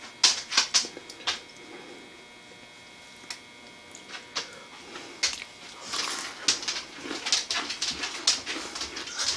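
Close-up chewing and crunching of a milk-dunked Oreo cookie. There is a cluster of crisp bites and chews at the start, a quieter pause, then steady repeated chewing from about halfway through.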